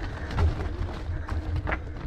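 E-mountain bike riding up a loose gravel track: tyres crunching over stones with scattered clicks, a low rumble of wind and jolts on the body-mounted microphone, and a faint steady hum.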